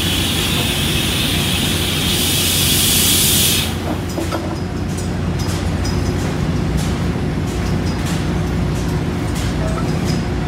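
Steady low hum of plant machinery, with a loud hiss that cuts off suddenly about three and a half seconds in. After it, light metallic clicks and taps come as hydraulic bolt-tensioner tools are fitted onto the flange studs.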